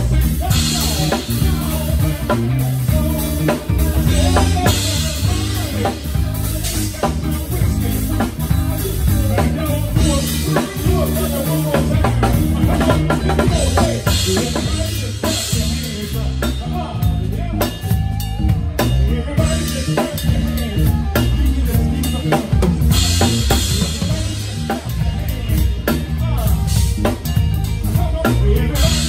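Live band playing, heard from right behind the drummer. A PDP X7 drum kit's bass drum and snare drive the groove over a stepping bass line, and cymbal crashes wash in every few seconds.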